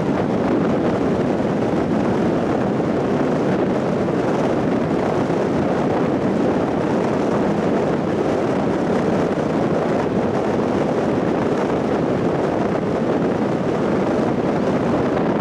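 Steady road and wind noise from a car cruising at about 60 km/h, with tyres on the road and air moving past. It holds at an even level with no change in pitch.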